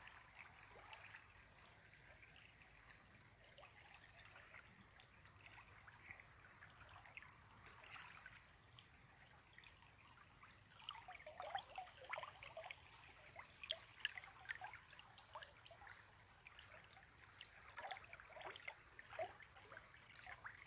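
Faint trickle and lapping of a river flowing around a wading angler, with light splashes and clicks of water growing busier in the second half. Two short high squeaks stand out about a third and halfway through.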